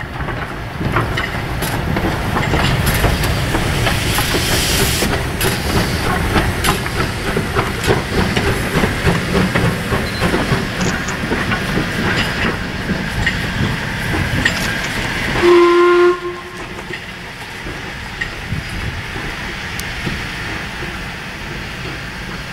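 LMS 8F 2-8-0 steam locomotive moving slowly through the yard, with a run of metallic clanks and knocks over a steady hiss of steam. About fifteen seconds in, a single short, loud steam whistle blast on one fairly low note, after which the sound is quieter.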